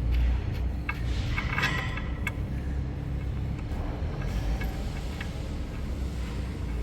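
Light metallic clinks of tools and parts, a few sharp ticks with a short ring about one to two seconds in, over a steady low rumble.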